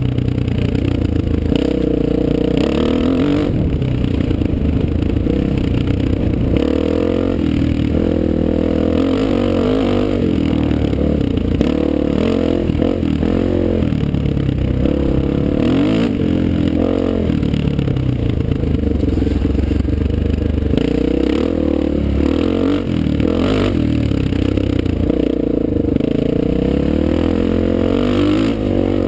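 Honda XR400's air-cooled four-stroke single-cylinder engine running under load while the dirt bike is ridden, its revs rising and falling again and again with the throttle.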